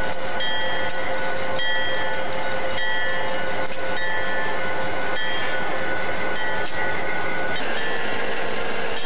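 Diesel locomotives idling: a steady, loud mechanical noise with a high whine that cuts in and out every second or so. The noise turns brighter near the end.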